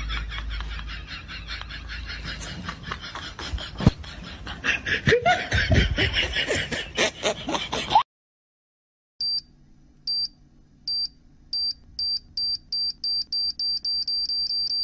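A laughter sound clip for the first half, then after a second of silence an electronic bomb-timer beeping: short high beeps that speed up from about one a second to several a second.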